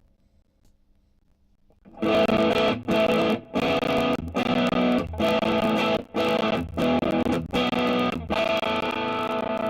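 Electric guitar played through a Mooer Solo high-gain distortion pedal (modelled on the Suhr Riot): after about two seconds of faint hum, heavily distorted chords start, played in a rhythm cut by short stops, then a chord held and left ringing near the end.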